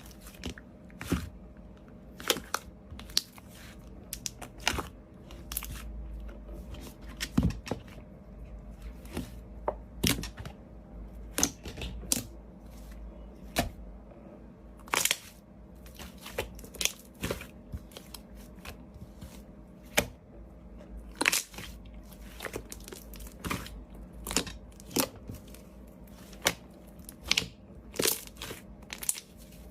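Slime being squeezed and poked by hand, giving irregular sharp crackling pops, roughly one or two a second, as trapped air bursts.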